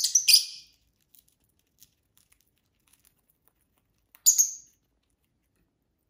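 Pet lovebirds giving sharp, high-pitched chirps: two close together right at the start and one more about four seconds in, with a few faint clicks between them.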